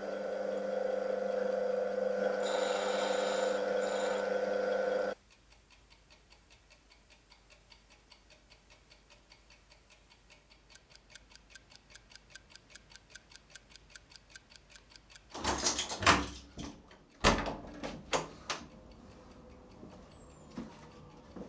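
A steady drone of several held tones cuts off suddenly about five seconds in. It leaves a mechanical watch ticking quickly and evenly, with several ticks a second. Near the end, a few loud, sharp knocks and clicks sound over the ticking.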